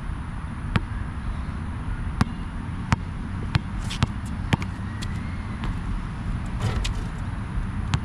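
A Molten BG3800 basketball bouncing on an outdoor court, about ten sharp slaps at an uneven pace of roughly one or two a second, over a steady low rumble.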